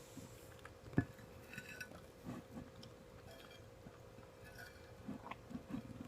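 A person eating omurice: soft, irregular chewing and mouth sounds, with one sharp tap of utensil or dish about a second in.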